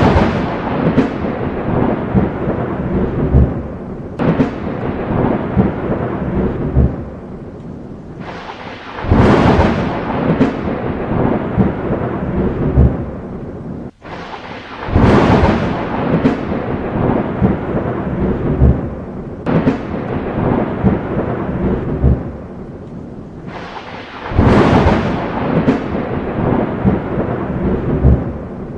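Thunderstorm: loud thunder claps breaking into long rolling rumbles over steady rain. Four peals come in, at the start, about a third of the way in, about halfway and about three-quarters of the way in. A brief dropout just before the halfway peal marks where the looped recording restarts.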